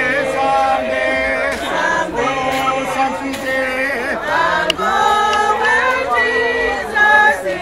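A congregation singing a hymn together, many voices holding long notes and moving from note to note.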